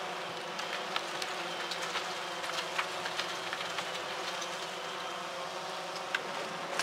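Small quadcopter drone hovering, its propellers giving a steady, even buzz, with scattered faint clicks.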